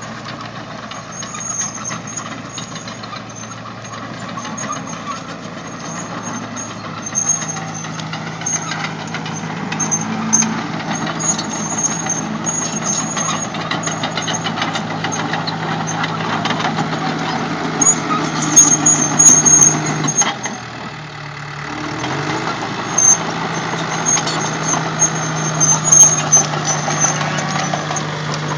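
A heavy engine running steadily at an even, low pitch, with a few sharp metallic clanks and knocks about two-thirds of the way through and again near the end, and a brief dip in the engine sound just after the first clanks.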